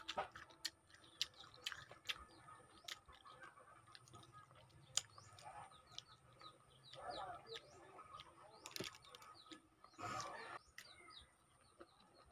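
Small birds chirping over and over, with the wet clicks and smacks of a mouth eating lemon slices close to the microphone; the loudest of them is a short smacking burst about ten seconds in.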